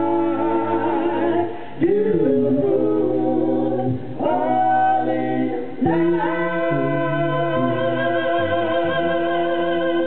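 Mixed men's and women's a cappella group singing doo-wop harmony, voices only with no instruments. It moves in three short phrases, then holds one long chord with vibrato over the last four seconds.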